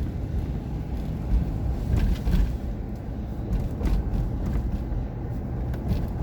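Car cabin noise while driving: steady low road and engine rumble, with a few faint light ticks.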